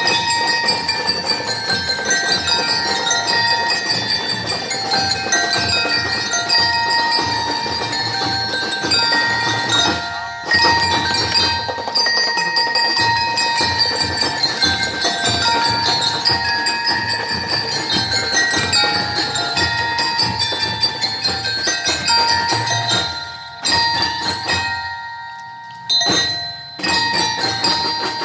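Drum and lyre band playing: bell lyres and mallet keyboard instruments ring out a melody over a steady drum beat. The music breaks off briefly about ten seconds in and drops out a few times near the end.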